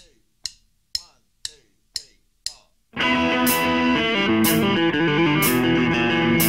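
Opening of a blues-rock song: sharp clicks about two a second count in, then about three seconds in the band comes in with electric guitar, bass and drums, a sharp drum hit landing about once a second.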